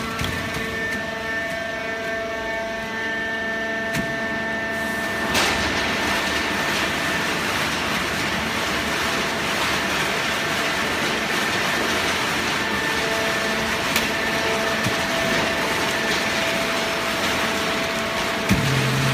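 Paper baling machine running: a steady mechanical hum, with a rushing noise joining about five seconds in, and a thump near the end.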